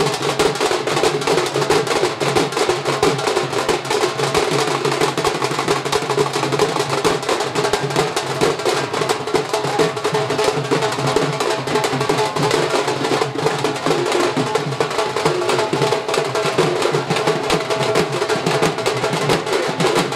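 Music with fast, continuous drumming: a dense, unbroken run of drum strokes over a sustained melodic line.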